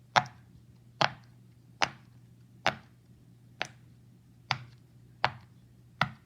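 Silicone pop-it fidget toy bubbles being pressed in one by one: eight sharp pops at an even pace, a little under one a second.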